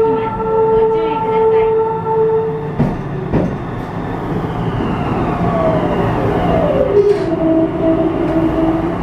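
Meitetsu limited-express train: a steady horn tone ends about two and a half seconds in, over the train's low running rumble. Then a tone slides down in pitch over a few seconds and settles lower.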